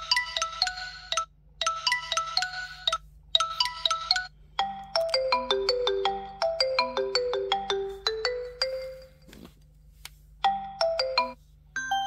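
ZTE Axon 40 Ultra ringtones playing one after another as short chiming melodies. A brief phrase is repeated three times with short pauses, then a longer tune of stepping, falling notes follows, and after a short pause another brief phrase comes near the end.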